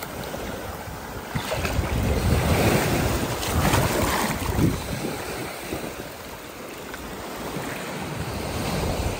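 Shallow surf washing up and foaming over the sand at the water's edge, with wind buffeting the microphone. The wash swells about two seconds in, eases in the middle and builds again near the end.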